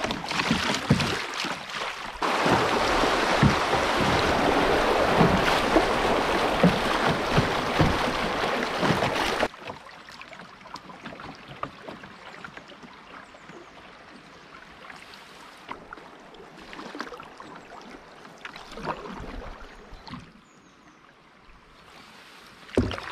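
Canoe on a river: a loud, steady rush of moving water and wind that cuts off suddenly about nine seconds in, then quieter water with scattered light knocks and a thump near the end.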